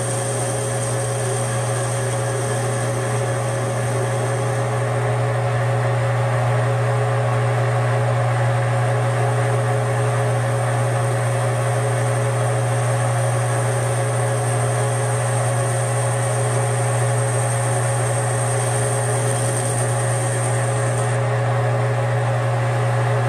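Metal lathe running steadily under power with a strong low hum, the tool taking a facing cut on a welded steel hydraulic fitting. A thin high whine stops near the end.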